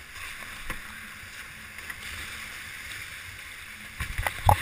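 Hobie catamaran hull rushing through choppy water at speed, a steady hiss of water and wind. Near the end come several hard slaps and splashes as the hull hits a wave and spray strikes close by.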